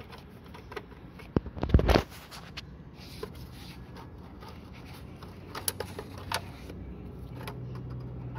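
Hand tools and fasteners handled against the ABS module in the engine bay: scattered small metallic clicks and scrapes, with a cluster of louder knocks about two seconds in, over a faint low hum.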